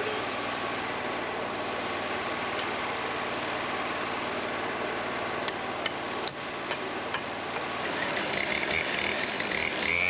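Wood-Mizer LT40 portable sawmill's engine idling steadily. About halfway through come several sharp metal clanks from hand tools on the saw head while the blade is being serviced.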